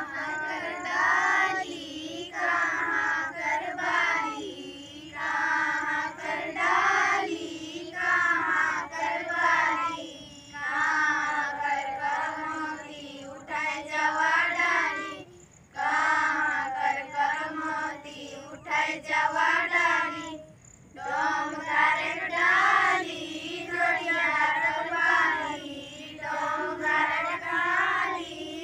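A group of girls singing a Karam festival folk song together in unison, in short phrases with brief breaks between them.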